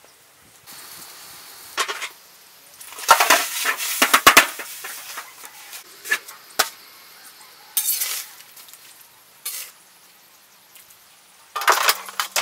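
Metal cookware clattering and scraping: a metal basin set down and shifted over a steel wok, with sharp knocks and scrapes coming in several separate bursts, the loudest about three to four seconds in.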